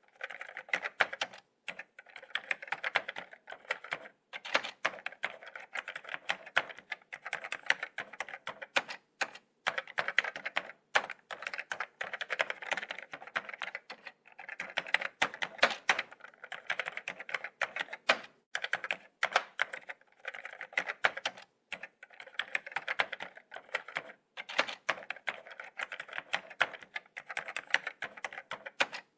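Laptop keyboard being typed on: quick runs of light key taps and clicks, broken by short pauses.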